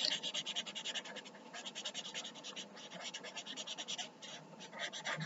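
Felt-tip marker scribbling on paper: quick back-and-forth colouring strokes, a soft scratchy rasp several times a second with brief pauses.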